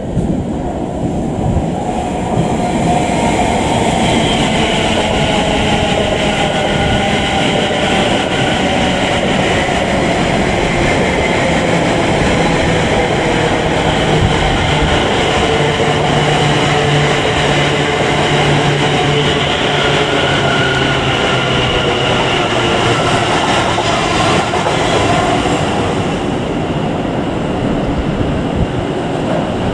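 Greater Anglia Class 720 Aventra electric multiple unit running past close by: a steady rumble of wheels on rail with the whine of its traction motors over it.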